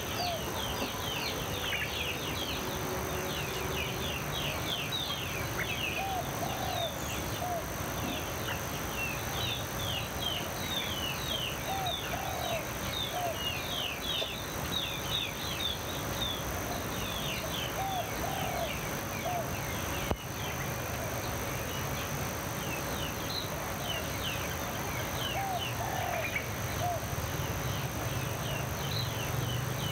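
Birdsong: many small birds chirping in quick high runs, busiest in the first half. A lower three-note call repeats about every six seconds, over a steady high-pitched hum.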